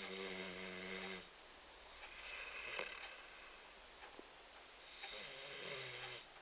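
Six-month-old black Labrador puppy snoring in its sleep: two low, buzzing snores about five seconds apart, with an airy, hissing breath between them.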